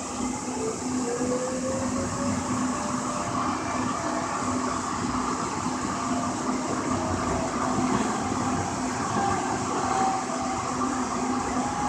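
Inside a Siemens S200 light rail car running along its track: steady running noise with a constant low hum and hiss, and a faint whine that rises in pitch within the first couple of seconds as the train picks up speed.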